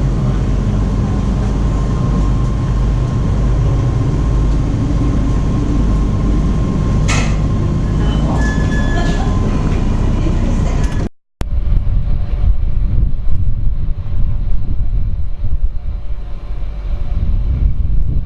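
Ferry's engine running with a steady low rumble and a faint hum, with a single knock partway through. After a cut, the engine rumble is heard under wind buffeting the microphone in uneven gusts.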